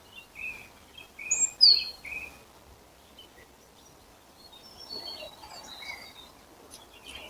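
Wild birds singing in spring: short chirps and whistled notes, with a loud falling whistle about one and a half seconds in, then a scatter of higher, quieter chirps later on over faint outdoor hiss.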